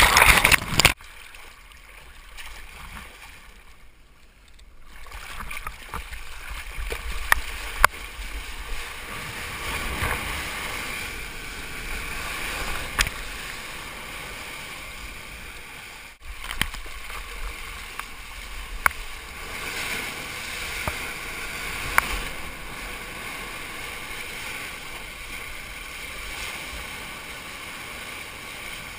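Sea water splashing and sloshing around a GoPro in its waterproof housing on a surfer in small surf. A loud splash opens it, then a few seconds of muffled sound underwater, then a steady wash of moving water with sharp splashes now and then.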